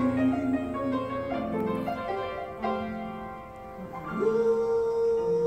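A woman singing into a microphone over piano accompaniment. Near the end she rises into one long held note.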